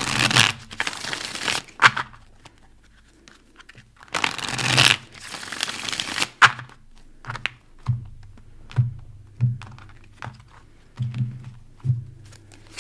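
A deck of tarot cards being shuffled: two long bursts of riffling, one at the start and one about four seconds in, then a series of light taps and slaps as cards are handled and laid on the table.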